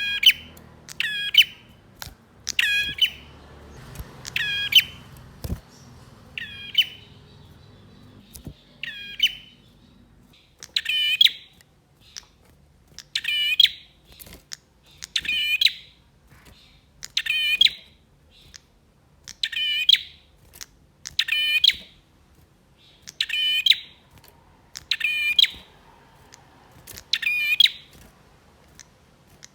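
Male prenjak (prinia) calling in an excited, insistent run: a long series of short, sharp chirps, spaced irregularly in the first ten seconds and then coming steadily about once a second.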